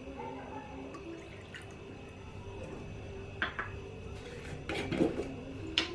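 Lemon juice poured into a cup of warm water, a soft trickle and drip, with a few light clicks of the container against the cup in the second half.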